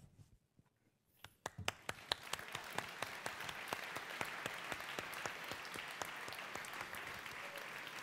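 Audience applauding: a few scattered claps about a second in, quickly building into full, steady applause.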